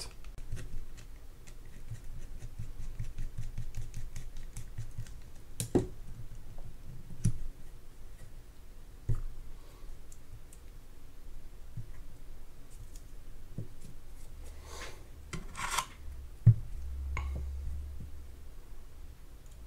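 Light metallic clicking and scraping of a small screwdriver and small metal parts as the line roller is taken off a spinning reel's bail arm. There are scattered small clicks, a few sharper ticks and a brief rustle.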